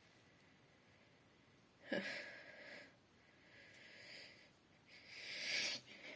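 A person's gasping breaths as a sneeze builds: a sudden catching gasp about two seconds in, a faint breath, then a longer inhale that grows louder near the end.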